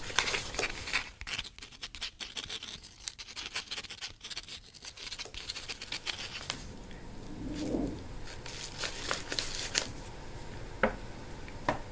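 A parcel's paper and plastic packaging being opened by hand: a dense run of quick crackles, snips and scratches for the first six seconds or so, then a softer rustle and a few sharp clicks.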